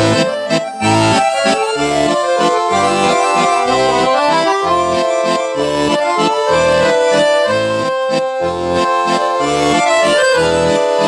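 Background music: an instrumental passage of a folk song on accordion, a sustained melody over steady pulsing bass chords.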